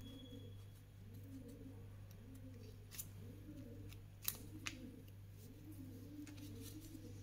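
Scissors snipping through paper: a few crisp blade clicks, the sharpest about three and four seconds in. A pigeon coos over and over in the background.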